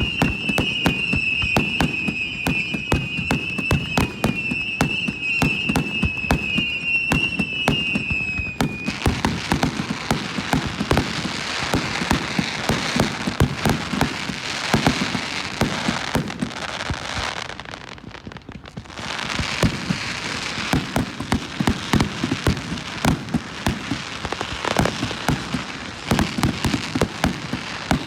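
Fireworks going off in rapid succession: many sharp bangs and dense crackling, with a brief lull about two thirds of the way through. For the first nine seconds a high, warbling, alarm-like tone sounds along with them, then stops abruptly.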